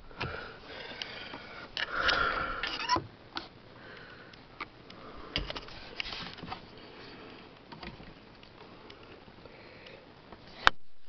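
Scattered plastic clicks and handling rustle from a 2011 Nissan Sentra's interior fittings being worked by hand: the door lock clicked right at the start, then the sun visor pulled down and its vanity mirror cover opened. A few breathy sniffs fall in between.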